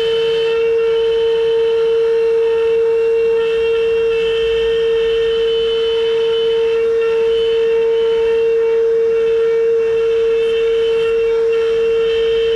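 CNC router spindle running with a steady high whine, while fainter higher tones swell and fade every second or so as the bit cuts into the wood.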